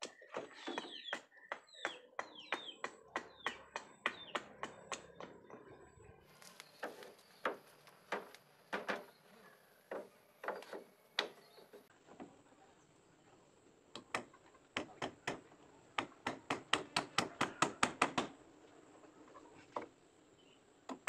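Repeated sharp chopping strikes of a hand blade on wood, shaping a wooden boat rib, several a second. After that come more irregular series of knocks of hand tools on wood, with a fast run of strikes about two-thirds of the way through.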